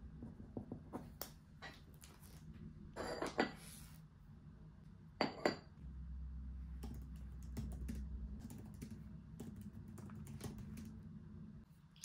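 Scattered light clicks and taps of small objects being handled, with louder knocks about three and five seconds in and a low hum for a couple of seconds in the middle.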